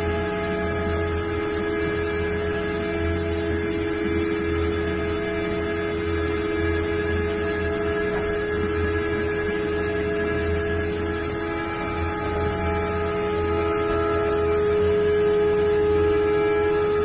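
CNC engraving machine spindle running steadily while it cuts into a metal plate under coolant. It makes an even hum with several held tones.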